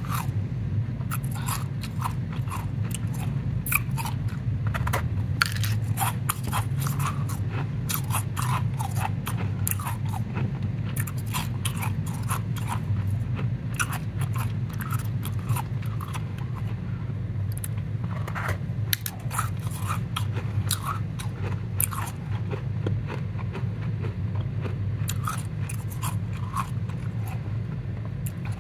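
Powdery ice crunching and crackling as gloved hands squeeze and press a mound of it, in many small irregular crunches. A steady low hum runs underneath.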